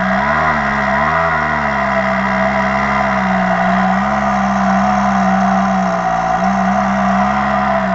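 Stihl MS 362 R C-M two-stroke chainsaw idling steadily after coming off full throttle, with a slight wavering of the revs in the first second or so.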